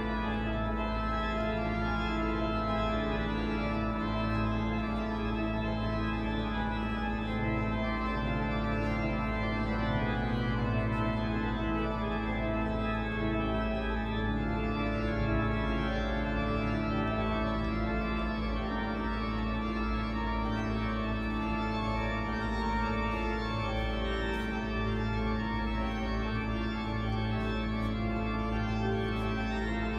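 Pipe organ playing, with low notes held steady underneath while many notes move above them.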